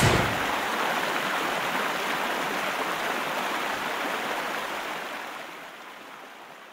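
Rushing river water running over shallow rapids, a steady rush that slowly fades out over the last couple of seconds. A brief sharp crack at the very start.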